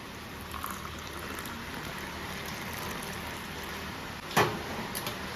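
Milk bubbling as it comes to the boil in a pan, a steady fizzing hiss with small pops, and one sharp click or knock about four seconds in.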